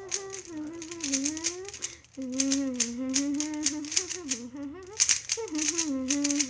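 Plastic speed cube clicking rapidly as its layers are turned during a timed solve. A person hums a wandering, gliding tune over the clicks, pausing briefly twice.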